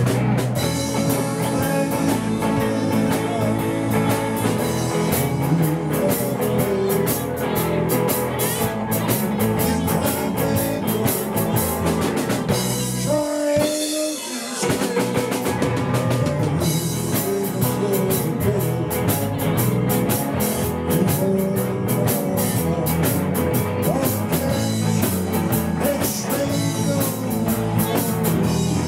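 Live rock band playing: electric guitars, bass and a drum kit. Near the middle the drums and the low end drop out for a few seconds, leaving the guitars, then the full band comes back in.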